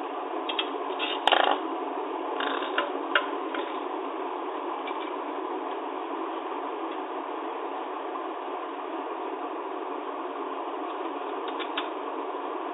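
Typewriter mechanism clicking and clacking: a quick cluster of clicks near the start with one louder clack about a second in, then a couple more clicks near the end, over a steady hiss.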